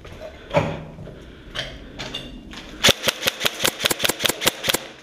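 Airsoft rifle shooting: a few single shots, then a rapid string of about a dozen shots lasting roughly two seconds.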